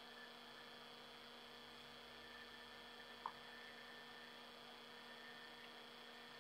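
Near silence: room tone with a faint steady electrical hum, broken once by a small click a little past three seconds in.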